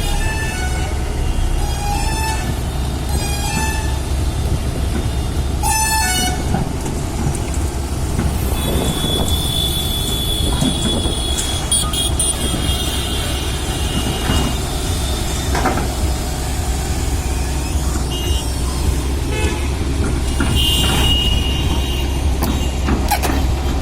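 Heavy construction machine running with a steady low engine drone. In the first six seconds there are several short beeps or horn toots, about one a second, and a high whine comes in for a few seconds partway through.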